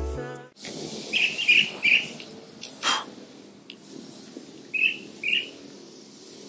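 Small birds chirping outdoors: three short chirps in quick succession about a second in, and two more near the end, over a faint background hiss. A short puff of noise sounds about three seconds in. Background music cuts off right at the start.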